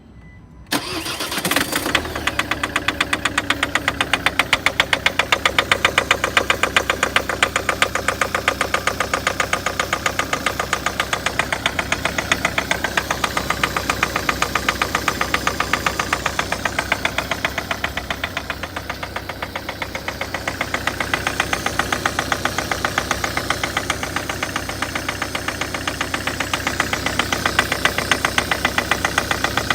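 Diesel engine starting about a second in, then running with a loud, rhythmic knock.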